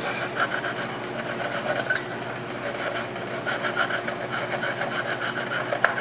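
Sandpaper glued to a stick scrubbed back and forth on a battery contact in a toy, a quick steady run of scratchy rubbing strokes. It is sanding the corrosion off the terminal down to bare brass.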